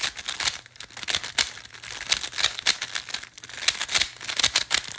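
Plastic magnetic speed cube (Tornado V3 Flagship) being turned fast, its layers clicking and clacking in quick irregular runs as algorithms are executed.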